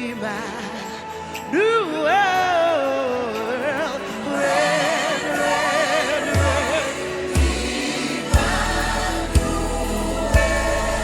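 Gospel worship music: voices sing a wavering, sliding melody over the band. A deep bass and drum beats, about one a second, come in near the end.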